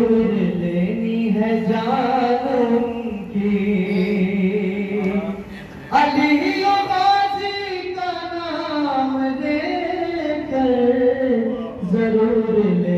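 A single male voice chanting an Urdu manqabat (devotional poem) in long, melodic held notes into a microphone, with no instruments. One phrase dies away and a new one begins sharply about six seconds in.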